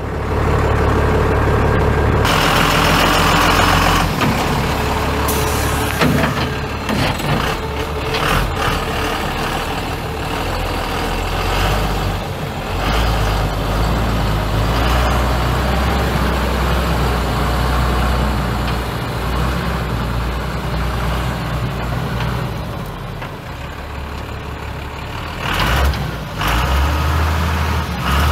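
Cummins ISB 5.9-litre inline-six diesel engine of a 1995 Ford F800 truck running, its low note shifting in pitch and strength several times.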